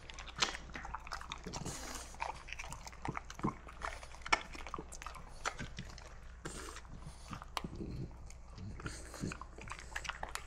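A French bulldog making wet mouth sounds, an irregular run of small clicks as it licks and chews.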